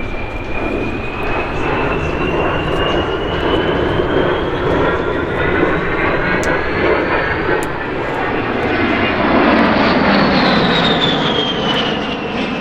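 Airplane engines passing by. A high whine climbs slowly in pitch over a broad engine rumble, then drops in pitch about ten seconds in as the aircraft goes past.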